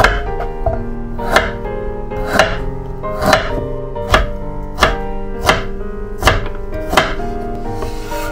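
Kitchen knife cutting burdock root into thick matchsticks on a wooden cutting board: about nine sharp chops, evenly spaced a little under a second apart, with steady background music.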